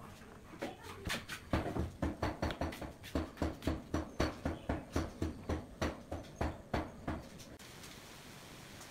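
Small wooden hexagon tiles being set and pressed down by hand onto a glued board: a quick run of light wooden taps and clicks, about three a second, that stops about seven seconds in.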